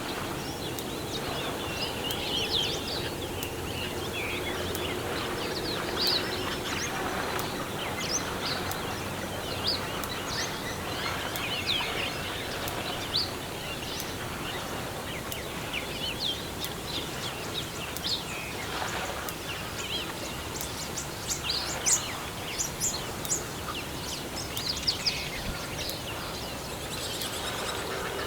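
Outdoor bush ambience: many birds chirping and calling over a steady background hiss, with sharper, louder calls clustering in the second half.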